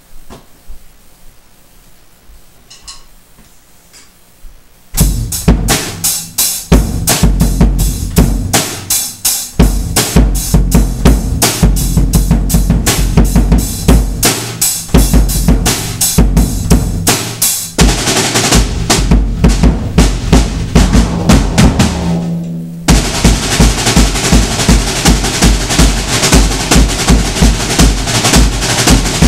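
Drum kit played hard, with a bass drum that has had its muffling taken out, so each kick gives a big low boom; snare and cymbals crash along with it. The playing comes in suddenly about five seconds in after a quiet moment, and near the end it settles into steady quick kick beats under washing cymbals.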